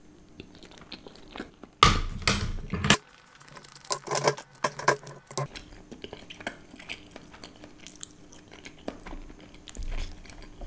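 Close-miked chewing of a mouthful of paneer macaroni: wet smacks and mouth clicks. A louder, denser patch of chewing comes about two seconds in, followed by a run of sharper clicks.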